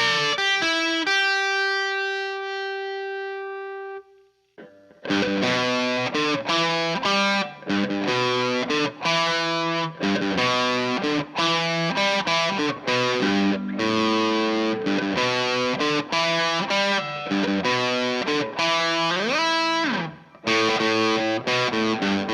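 Electric guitar played through a Boss SD-1 overdrive pedal, reverb and a Fender Bassman amp. A single held note rings out and stops about four seconds in, then overdriven chords and riffs follow, with a slide up the neck near the end.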